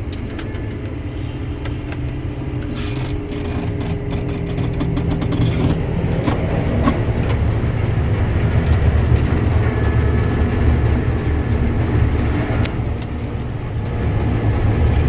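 New Holland TR96 combine running with a steady low drone that grows louder about six seconds in as it moves off into the crop. Light clicks and rattles come through in the first few seconds.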